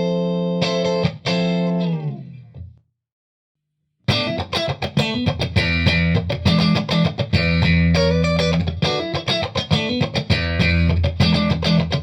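Electric guitar played through a Limetone Audio Focus NX compressor pedal: held chords ring out and fade, then after about a second of silence a busier passage of picked notes and chords starts.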